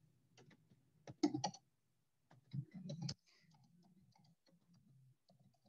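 Computer keyboard being typed on: faint, irregular keystroke clicks in small clusters, the louder ones in the first three seconds.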